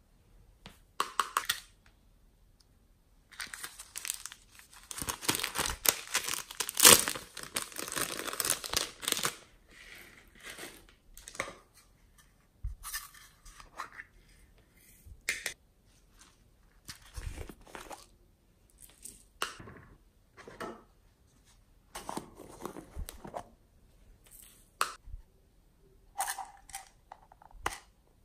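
Hands handling small plastic cups and sprinkling glitter onto slime in a glass tray: scattered clicks, taps and rustles. A dense, scratchy rustling stretch starts a few seconds in and lasts about six seconds.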